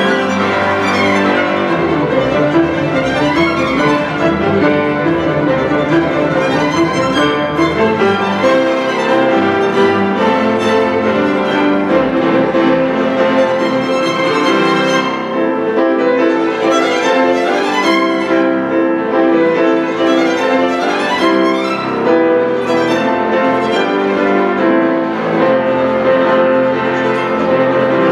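A string orchestra of violins, cellos and double bass playing with a solo grand piano, the bowed strings sustained and continuous throughout.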